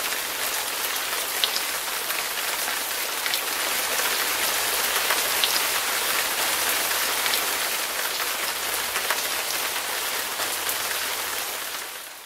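Steady rain-like hiss with scattered small ticks through it, fading out near the end.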